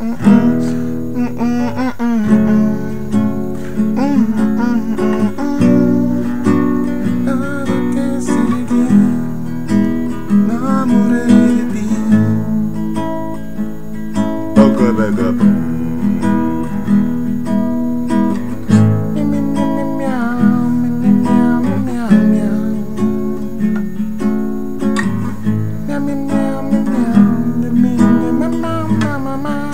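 Classical acoustic guitar strummed in a steady rhythm, with a man humming the melody over the chords.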